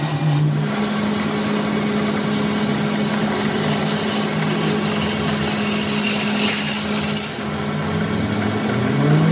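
A machine running steadily with a constant hum and noisy rush, with a brief higher ring about six and a half seconds in.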